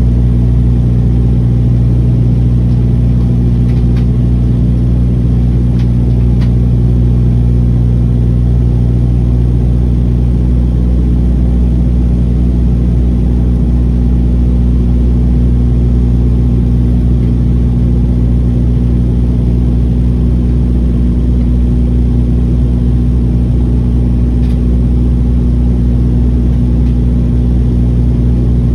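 Turboprop airliner in cruise, heard from inside the cabin beside the propeller: a loud, steady drone with several fixed low tones that holds unchanged throughout.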